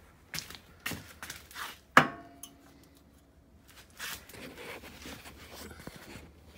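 A few light knocks and handling noises, then one sharp clank about two seconds in that rings on for a second or so, like metal struck while working on the vehicle. Rustling and handling noise follow.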